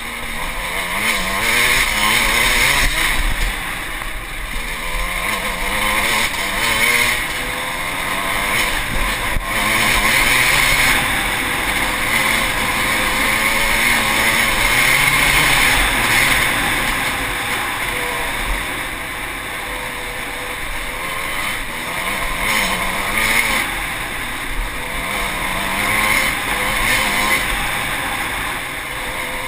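Enduro dirt bike engine running hard on a rough trail, its note rising and falling repeatedly as the rider works the throttle, picked up close by the bike's camera under a steady rushing noise.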